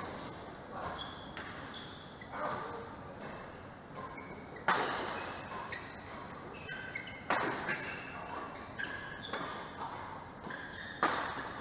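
Badminton rally: rackets smacking the shuttlecock, three hard smashes a few seconds apart among lighter hits, with short squeaks of players' shoes on the court mat, echoing in a large hall.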